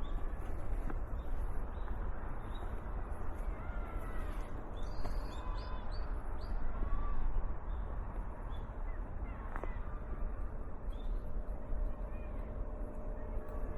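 Wild birds calling now and then, with a run of short high chirps about midway, over a steady low rumble.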